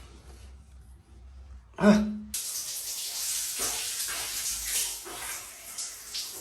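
Water running hard from a tap, switched on about two seconds in with a short low hum from the pipe, then a steady, splashing hiss.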